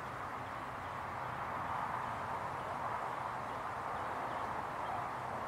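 Steady outdoor background hiss with no distinct events.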